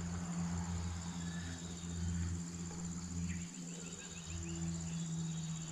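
Insects droning steadily on one high note, over a low steady hum. A short run of rapid chirps about three and a half seconds in.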